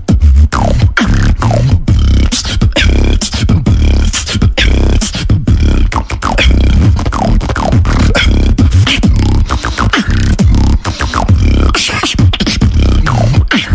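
Human beatboxing: a fast groove of mouth-made kick and snare hits over a continuous deep bass, with quick falling-pitch sweeps.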